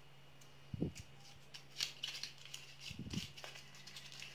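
Foil wrapper of a chicken stock cube crinkling and crackling in short bursts as fingers peel it open and crumble the cube. Two soft low thumps, about a second in and about three seconds in, over a faint steady hum.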